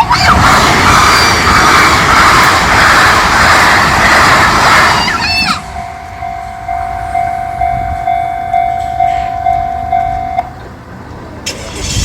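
A train passes over a level crossing with a loud, even rush for the first five or so seconds, the crossing's warning bell ringing beneath it. Once the train has gone the bell rings on alone at about two dings a second, stops about ten seconds in, and starts again near the end.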